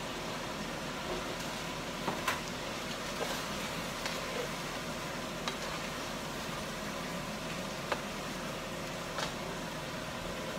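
Steady hiss of a pot of meat and vegetables sizzling and simmering on a stove, with a few light clicks and knocks as vegetables and a utensil go into the pot.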